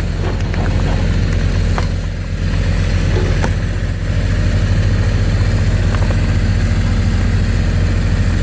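Engine running steadily at low revs, a deep even drone, with a few faint knocks over it.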